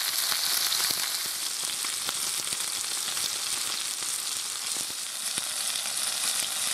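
Chunks of Murray cod coated in fried onion sizzling in hot oil in a frying pan: a steady hiss with many small pops.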